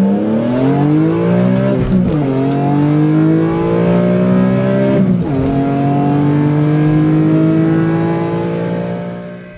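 Car engine accelerating through the gears, its pitch climbing steadily with two upshifts, about two seconds in and about five seconds in. It fades away near the end.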